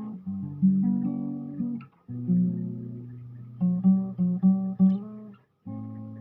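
Solo acoustic guitar played fingerstyle: a plucked melody over bass notes, with short phrases broken by two brief stops, near 2 s and about 5.5 s.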